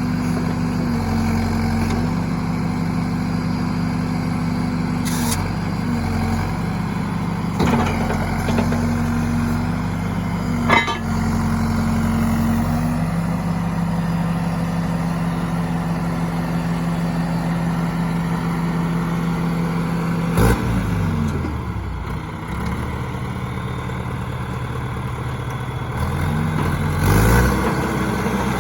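John Deere 450C loader backhoe's diesel engine running steadily, with a few sharp knocks. Its speed drops about two-thirds of the way through and rises again near the end.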